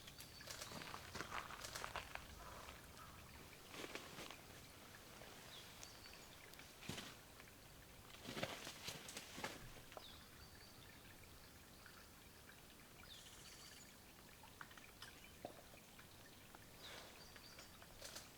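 Faint woodland ambience: soft rustling noises come and go several times, with a few short, high, thin bird calls and a brief buzzy high call about two-thirds of the way through.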